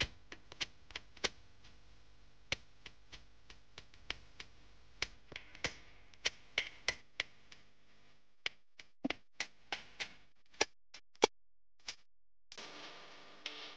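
A series of sharp, irregularly spaced ticks and clicks with near quiet between them, more closely bunched in the second half. A faint steady hiss comes in near the end.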